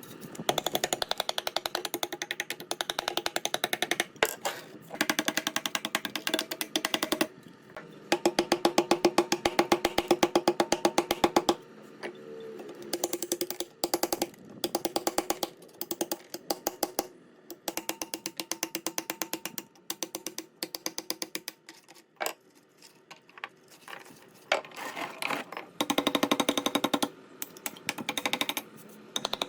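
A power tool hammering rapidly in repeated bursts of a few seconds each, with short pauses between: a fast, even rattle of impacts over a steady motor tone, typical of an impact wrench or air hammer working on the machine's parts.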